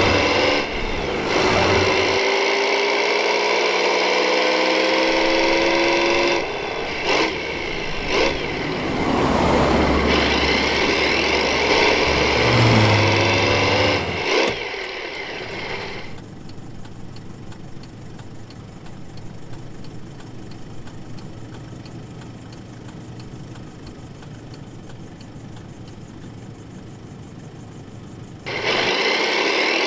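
A motor vehicle engine revving up again and again, its pitch rising with each pull, loud through the first half. It drops to a much quieter, steady engine sound for the second half, and a loud burst returns near the end.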